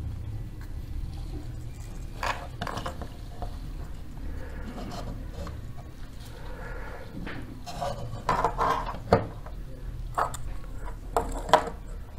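Plastic clicks and knocks as an opened LED bulb's plastic housing and driver board are handled and the housing is fitted onto a lamp holder. The clicks come in scattered groups, a few near the start and a denser run in the second half, the sharpest about nine and eleven and a half seconds in.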